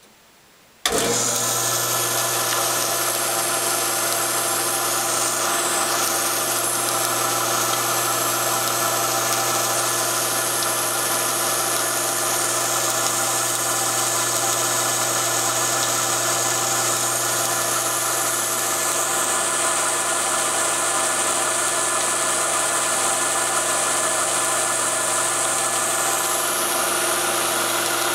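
Ridgid BS14000 band saw running free at steady speed, a smooth even hum with hiss that comes in suddenly about a second in. It has been tuned with rubber grommets under the motor and a link belt so that it runs smoothly enough for a coin to stand on it.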